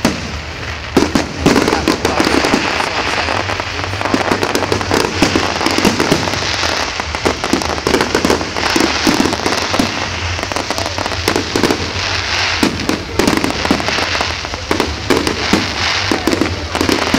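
Firework display going off without let-up: a dense, irregular run of bangs and crackling as shells and rockets burst one after another.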